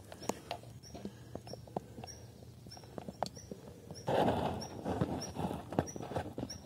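Camera being handled and set down on the forest floor: scattered knocks and clicks, then from about four seconds in a louder rustle of a fleece sleeve brushing against the microphone. Behind it a small bird repeats one short high note steadily, about every half-second.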